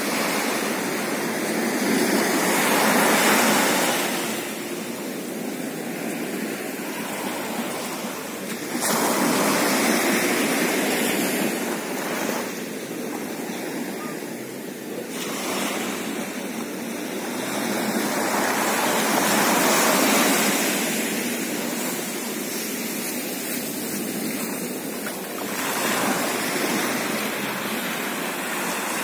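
Pacific Ocean surf: waves breaking and washing up the shore in long swells that rise and fall every few seconds.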